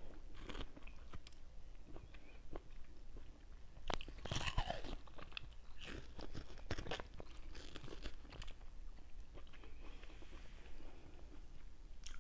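Close-up mukbang eating sounds: juicy ripe mango flesh being bitten, gnawed and chewed off the seed, in irregular small wet clicks and smacks, a little louder about four seconds in.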